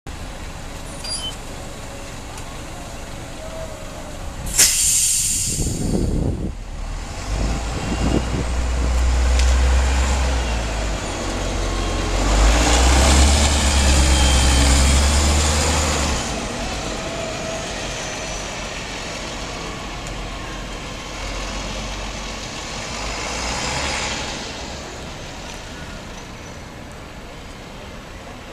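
Heuliez GX187 articulated city bus pulling away from a stop. A short, loud hiss of compressed air comes about four and a half seconds in, then the engine runs under load as the bus accelerates past, loudest in the middle and fading toward the end.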